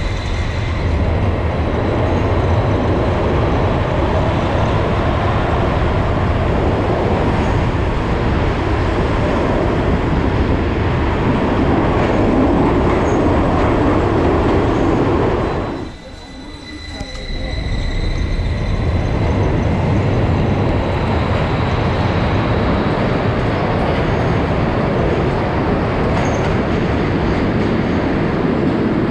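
Light-rail tram running through an underground tunnel, a loud steady rumble and rattle of wheels on rails heard from aboard the car. A thin high whistle sounds briefly near the start and again for a few seconds after a sudden short drop in the noise about sixteen seconds in.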